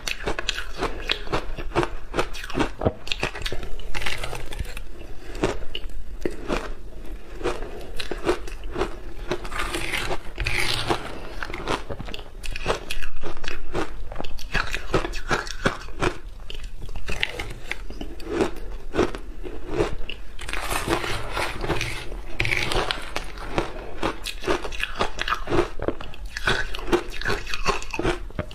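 Crunching and chewing of mouthfuls of shaved ice, close to the microphone: a dense, continuous crackle of small icy crunches, bite after bite.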